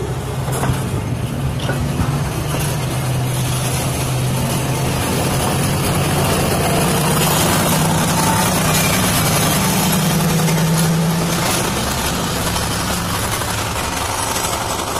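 Freight cars rolling past close by: a steady rumble of wheels on rail, with a low engine drone underneath that rises a little in pitch around the middle and fades near the end.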